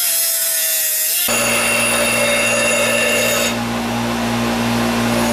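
An air-powered grinder whining with a high hiss as its abrasive disc cuts into a steel control arm bracket. About a second in it switches to an electric bench grinder's steady hum with the rasp of the steel bracket ground against its wheel.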